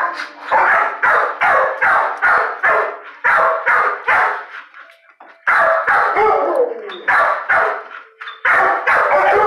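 Dog barking in a fast run of sharp barks, about three a second, with a short pause about halfway through before the barking resumes.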